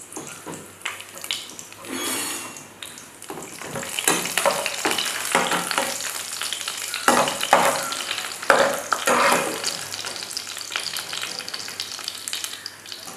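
Raisins sizzling as they fry in hot ghee in a pan, stirred and scraped around with a silicone spatula. The sizzle grows louder about a third of the way in, with a few sharper scraping strokes around the middle.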